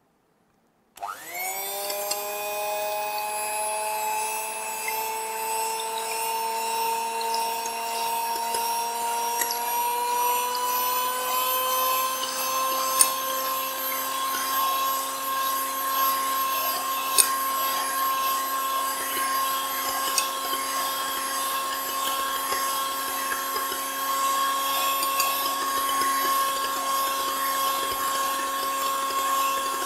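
Electric hand mixer starting about a second in and running steadily, its beaters whipping egg whites in a glass bowl. The motor whine rises a little in pitch over the first ten seconds, then holds, with a few sharp clicks.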